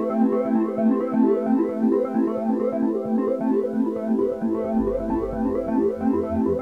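Background electronic music: a synthesizer plays fast, repeating keyboard notes, and a deep bass line comes in about two-thirds of the way through.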